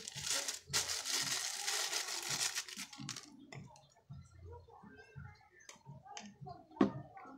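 Plastic crinkling in the hands for about three seconds, then small clicks and handling noises, with one sharp click near the end.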